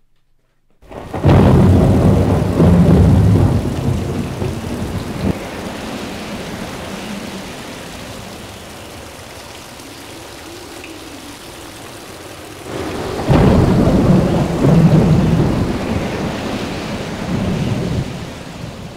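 Thunderstorm: a sudden loud crash of thunder about a second in that rolls away over several seconds, steady rain hissing beneath, and a second long roll of thunder about thirteen seconds in.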